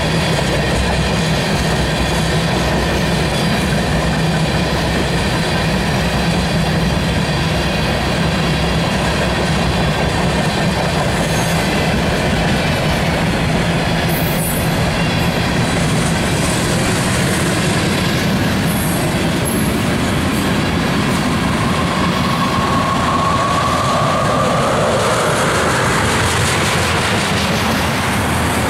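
Freight cars (tank cars and covered hoppers) rolling past on steel wheels with a steady, loud rumble. About three quarters of the way through, a thin wheel squeal sets in and rises in pitch.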